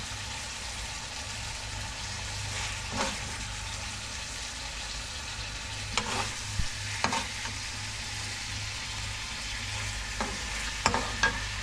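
Chicken sizzling in a karahi while a metal spoon stirs and scrapes it, with a handful of short scrapes and clinks against the pan, the last few close together near the end.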